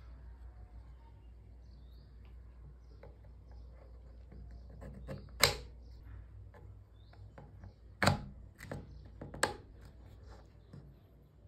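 Handling sounds of model turbojet kit parts: small ticks and a few sharp clicks and knocks as a blade ring is fitted into a half of the engine casing. One knock about halfway through is the loudest, then three more come close together a couple of seconds later.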